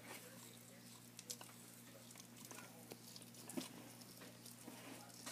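Tortoise biting and chewing shredded food: faint, irregular clicks and snaps spaced unevenly over the few seconds, over a low steady hum.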